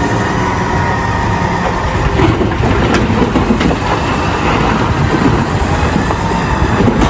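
Caterpillar 990 wheel loader's diesel engine running steadily under load, with coal pouring and rattling into a tipper trailer as the bucket dumps, and a few sharp knocks about two to four seconds in.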